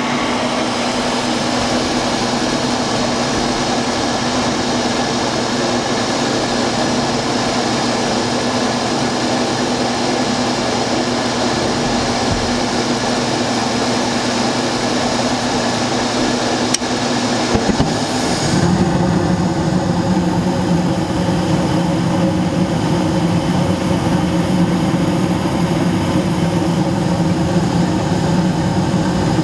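Coleman 60,000 BTU gas furnace starting up and running with a loud, steady mechanical hum from its fans. There is a sharp click about 17 seconds in, and about a second later a deeper, stronger hum joins as another stage of the furnace comes on.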